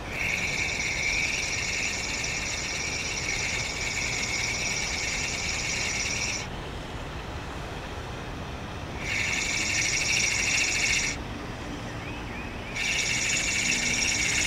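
Daiwa Crossfire LT 1000 spinning reel being cranked to retrieve a crankbait: a steady gear whir in three spells, a long one of about six seconds, then two short ones of about two seconds each, with brief pauses between.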